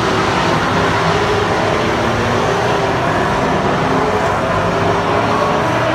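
A pack of stock cars racing around an oval, several engines running hard at once, their pitches rising and falling as the cars pass and accelerate out of the turn.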